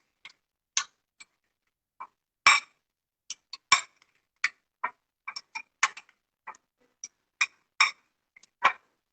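A spoon clinking and tapping against a bowl as chopped vegetables and sauces are stirred together: irregular sharp clinks, a few a second, some louder than others.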